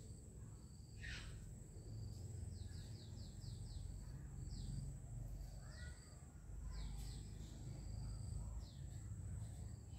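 Small birds chirping: short, quick downward-sweeping calls, including a rapid run of about five a few seconds in, over a steady low rumble of outdoor background noise and a thin, steady high whine.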